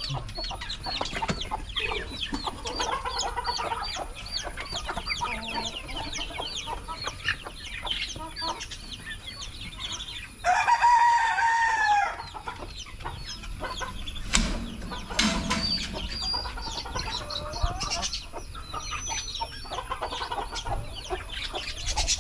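Caged chickens clucking and calling throughout, with a rooster crowing once, loudly, about ten seconds in.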